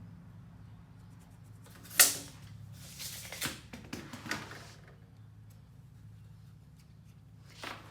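Handling sounds while measuring aluminum trim: one sharp knock about two seconds in, then a few lighter clicks and rattles, over a steady low hum.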